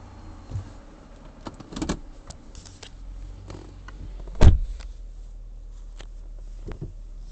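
2007 Dodge Charger engine idling low and steady just after being revved, under a series of sharp clicks and knocks from inside the car and one loud thump about four and a half seconds in.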